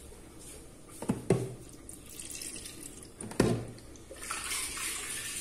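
A few hard knocks, then a kitchen tap turned on about four seconds in, with water running steadily into the sink.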